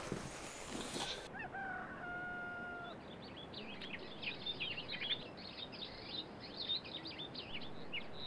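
A rooster crows once, ending in a long held note, then small birds chirp rapidly and continuously in quick high notes.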